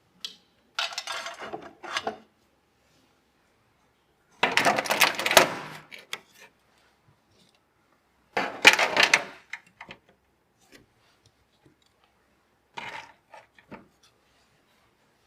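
Four short bouts of clicking and clattering as hard computer parts are handled and fitted together.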